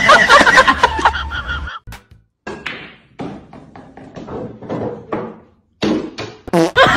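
A person's voice for the first second or two, then after a short break a run of light, irregular taps and knocks.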